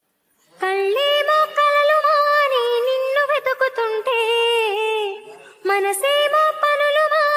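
A woman's high voice singing a wordless, ornamented melody in long phrases, breaking off briefly about five seconds in before carrying on.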